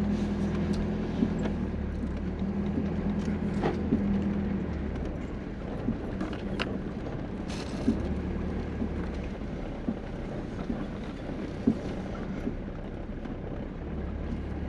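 RV engine running as the motorhome pulls slowly out of camp on a sandy dirt road, a steady low hum that eases off for a while in the middle and picks up again near the end. Scattered sharp clicks and rattles sound over it.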